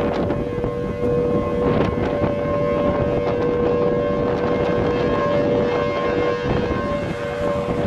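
Outdoor warning siren sounding a steady two-note tone while a tornado is on the ground, with wind buffeting the microphone.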